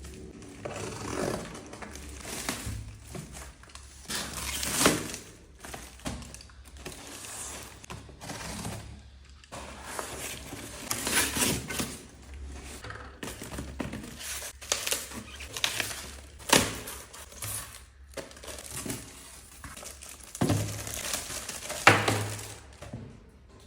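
Packaging being handled and opened by hand: irregular crinkling and rustling with light thumps and knocks, the loudest about five seconds in and near the end.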